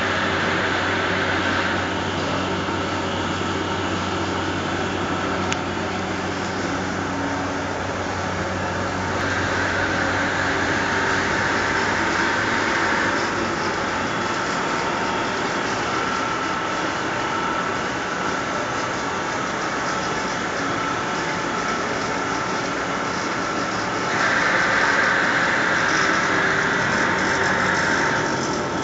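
Fibre opening machine and its blower running, a steady machine hum with a rushing of air that swells twice, about ten seconds in and again near the end.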